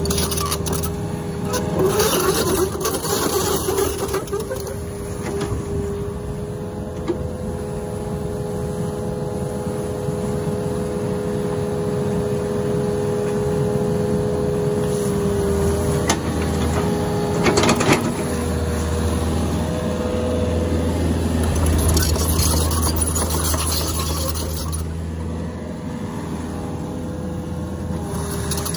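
Mini excavator's engine and hydraulics running steadily with a steady whine as it works its bucket. A few louder noisy bursts come and go over the running.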